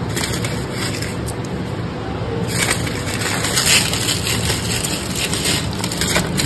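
Takeaway food packaging being opened by hand: a plastic bag and wrappers rustling and crinkling continuously, busier and crisper from a little before halfway through.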